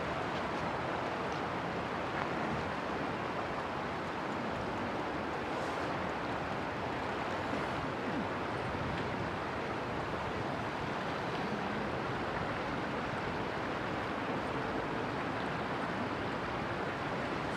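Steady rushing noise of wind and moving river water at a constant level.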